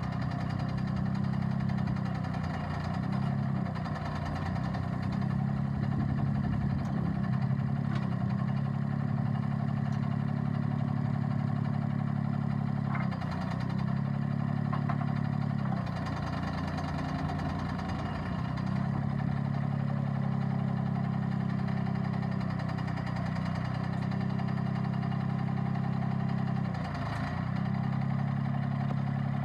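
Mahindra eMax 25 compact tractor's diesel engine running steadily, its note dipping briefly a few times as the load changes.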